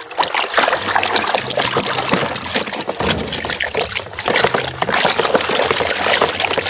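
A hand swishing and splashing through soapy water in a plastic basin, a steady run of small splashes and sloshes.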